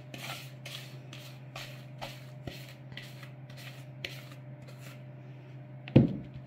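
Quick rhythmic scraping, a few strokes a second, as the last of the beaten egg yolks and sugar is scraped out of a bowl into the flour. About six seconds in comes a single sharp knock as the bowl is set down.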